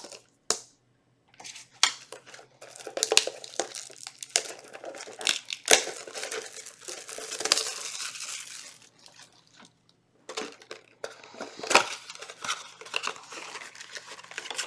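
Cardboard and plastic trading-card packaging being handled and torn open: crinkling and tearing with many sharp clicks and small rattles, as the contents are pulled out. The noise pauses briefly about a second in and again near ten seconds.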